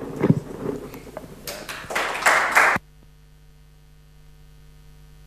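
Audience clapping, growing denser and louder, that cuts off suddenly about halfway through, leaving a steady electrical mains hum.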